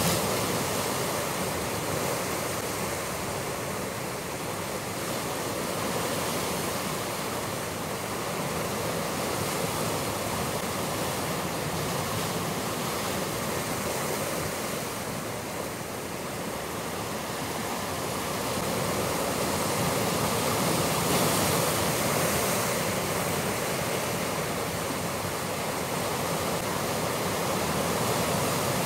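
Ocean surf breaking and washing over rocks, a steady rush that swells and eases slowly, growing louder about two-thirds of the way through.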